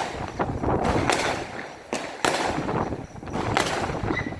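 36-shot fireworks cake firing, a series of sharp bangs spaced irregularly between about half a second and a second apart.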